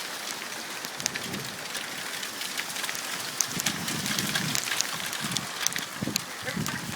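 Hail falling hard and pelting surfaces: a dense hiss studded with many sharp clicks of individual hailstones striking. A low rumbling joins it from about three seconds in.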